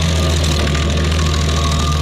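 Rayco RG50 stump grinder running steadily under load, its cutter wheel grinding into a maple stump and its roots.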